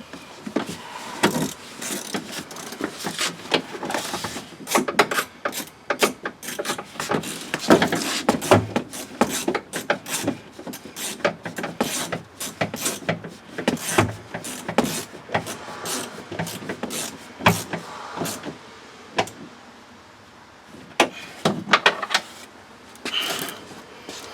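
Metal tools and parts clicking and knocking irregularly inside a GMC Yukon's door as the outer door handle's bolts are driven back in, with a short lull near the end.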